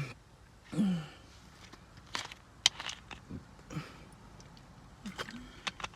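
Close-miked mouth sounds of someone drinking cola: a short falling throat sound like a gulp or sigh just under a second in, then a run of swallows, wet lip smacks and sharp mouth clicks.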